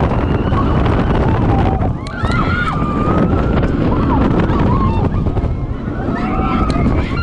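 Steel roller coaster train running at speed through its inversions, with heavy wind buffeting the microphone and a steady rumble. Riders' wavering screams and whoops rise over it several times.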